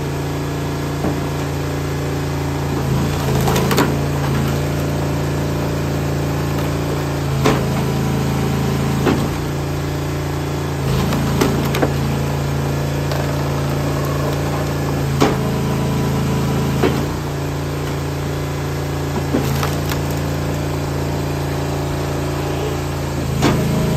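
Eastonmade 22-28 hydraulic log splitter running steadily, its engine and pump humming while a big log is forced through the box wedge. The wood gives sharp cracks and knocks every few seconds as it splits.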